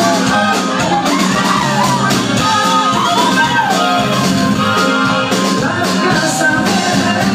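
Loud live band music in a packed club, with a steady beat. Crowd voices sing and shout along over it.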